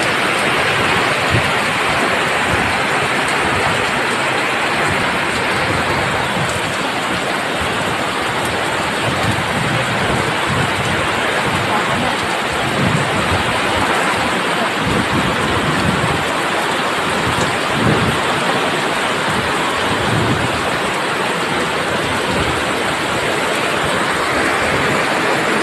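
Heavy typhoon rain pouring steadily, a dense hiss of downpour on the street and roofs, with occasional brief low rumbles.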